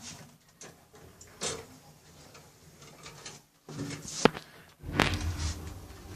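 Lift at the ground floor: soft knocks, one sharp click a little after four seconds, then a steady low hum as the lift doors move.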